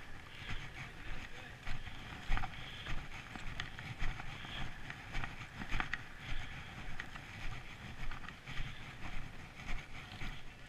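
Footsteps on packed snow at a steady walking pace, about three steps every two seconds.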